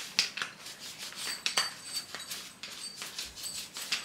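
Sticky lint roller rolled over a knit top in a string of short strokes, its adhesive sheet crackling as it picks up pet hair.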